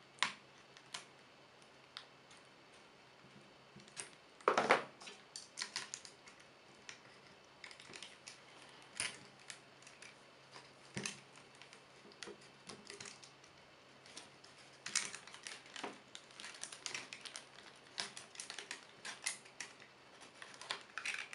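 Small scissors snipping through the thin plastic of a soda bottle filled with set jelly: irregular short clicks and crackles of the cutting plastic, louder about four and a half seconds in and coming in quicker bunches in the second half.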